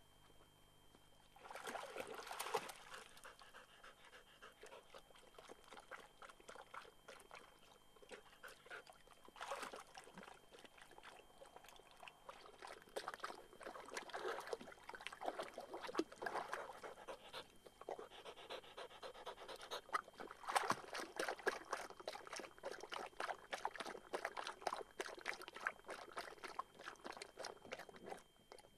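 A pointer bitch panting hard and fast while standing in a shallow pond, with light splashing of water around her. The panting starts about a second and a half in.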